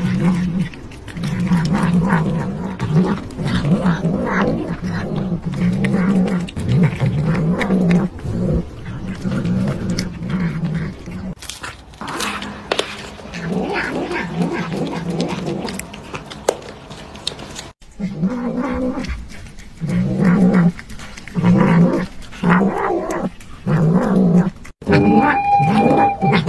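Domestic cats growling and meowing while they eat, in short low calls repeated over and over, each about a second long.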